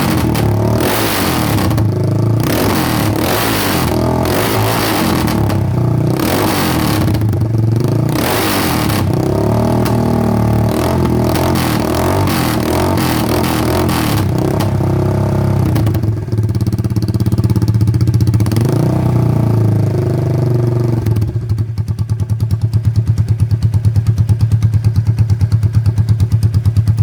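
Italika FT250TS's 250 cc single-cylinder four-stroke engine running with its exhaust removed, very loud. It is blipped sharply about once a second for the first several seconds, then runs steadier, and near the end settles into an even, rapid idle pulse.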